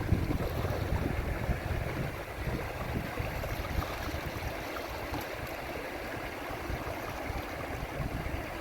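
Steady rush of flowing river water, with low wind buffeting on the microphone strongest in the first couple of seconds and then easing.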